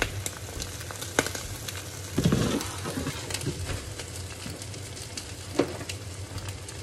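Egg and diced hot dog frying in a pan: a steady sizzle with short crackles. A louder, low knock comes about two seconds in.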